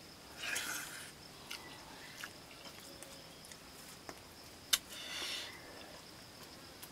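A man eating rice by hand from a metal karahi: soft mixing and scraping of food in the pan and mouth sounds, with a few light clicks and one sharp click against the metal a little before five seconds in.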